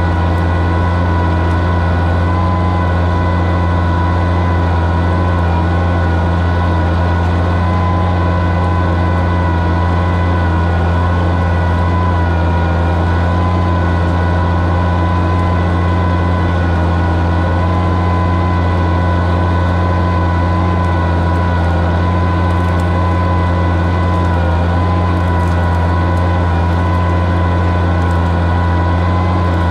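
Oliver 77 tractor's six-cylinder engine running steadily under load, pulling a plow, with a constant low drone and a steady whine above it.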